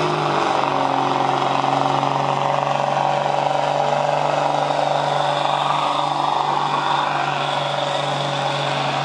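Third-generation Dodge Ram 2500's Cummins turbo-diesel engine running steadily at full load while dragging a pulling sled. Its pitch drops slightly about a third of a second in, then holds.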